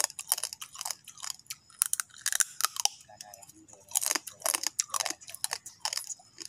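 A raw crab being chewed and crunched in the mouth: a quick, irregular run of crisp cracks as the shell breaks between the teeth.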